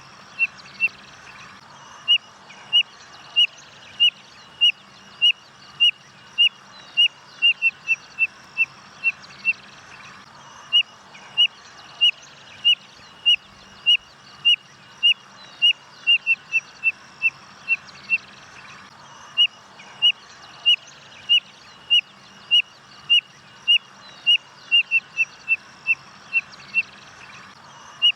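Spotted nothura (codorna-amarela) singing: series of short, high whistled notes, evenly spaced at first and then quickening into a rapid run. Each series lasts about eight seconds and is repeated after a short pause, three times.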